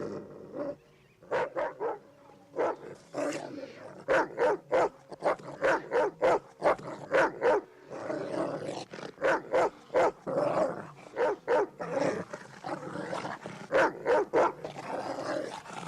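Attack-trained white German Shepherd barking aggressively in a fast, unbroken string of barks, about two or three a second, after a brief lull at the start.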